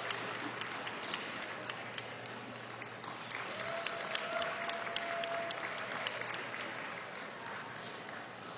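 Audience applauding, a dense patter of hand claps that slowly dies down toward the end.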